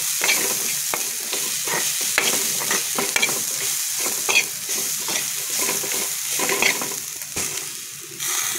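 A spoon stirring and scraping a crushed coconut masala around a frying pan, in many quick repeated strokes over a steady sizzle of hot oil; it goes quieter near the end.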